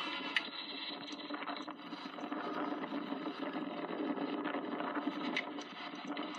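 GATX-leased diesel locomotives leading a freight train, their engines running with a steady low hum as the train approaches slowly. A sharp click about half a second in.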